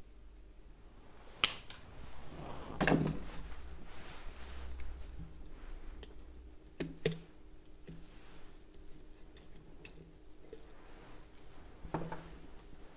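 Handling noise: about five separate sharp clicks and taps of small objects, the loudest about a second and a half and three seconds in.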